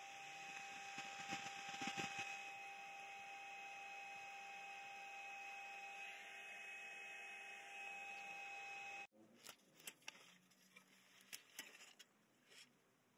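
Faint steady electrical hum with a thin high whine from powered electronics, with a few soft handling knocks about a second or two in; it cuts off abruptly about nine seconds in, leaving only faint scattered clicks and taps.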